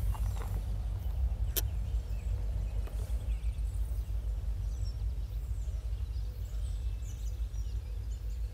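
Steady low rumble of a freight train's cars rolling past on the rails at 25 to 30 mph, with one sharp click about a second and a half in.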